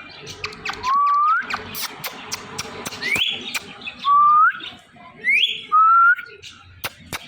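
Ringneck parakeet giving about five short rising whistles, with sharp clicks in between.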